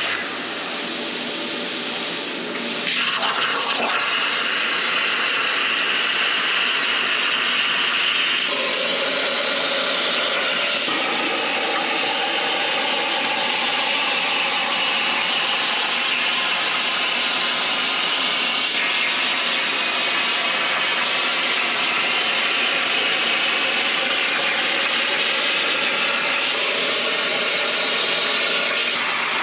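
An Everlast air plasma cutter on a CNC plasma table cutting steel plate: a loud, steady hiss that grows louder about three seconds in, with faint tones that shift now and then as the torch travels.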